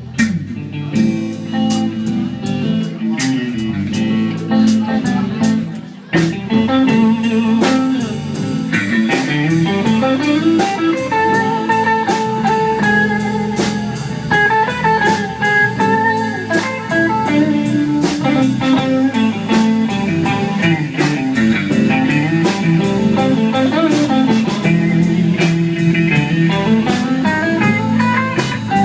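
Blues band playing an instrumental break: electric guitar over bass and drums. About six seconds in, a bass line moving up and down and a higher lead guitar melody take over.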